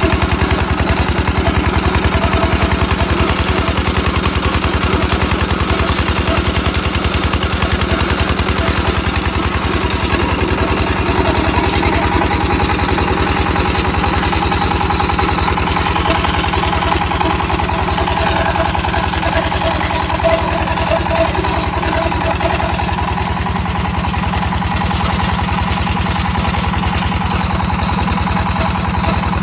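Single-cylinder diesel engine running steadily with an even, fast thumping beat, driving a tube well pump through a flat belt.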